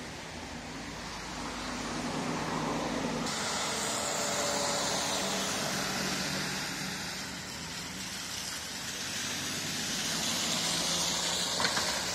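Car tyres hissing through wet slush on a snowy road as traffic passes, the sound swelling about four seconds in and again near the end as a car goes by.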